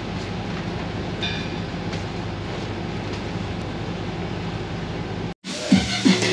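Steady mechanical drone of a commercial kitchen's extraction fans and equipment, with a brief high-pitched ringing tone about a second in. Just after five seconds it cuts off abruptly and music with a beat starts.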